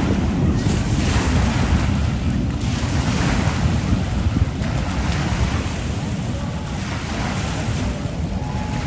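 Wind buffeting the microphone: a steady, heavy rumbling noise that rises and falls in gusts, with waves on the lakeshore.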